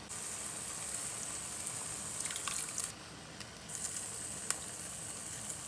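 Beef steaks sizzling in lard and their own released juice in a steel frying pan, a steady high hiss that dips briefly about three seconds in. A few light clicks come as the ground spices are tipped from a stone molcajete into the pan.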